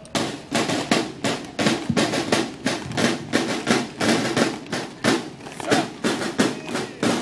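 A column of cadets marching in step, boots stamping on stone paving in a steady beat of about two strikes a second.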